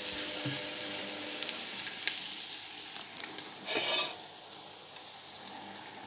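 Chopped onion sizzling as it fries in oil in a pan, stirred with a silicone spatula that clicks and scrapes against the pan now and then; a brief louder rasp a little past halfway.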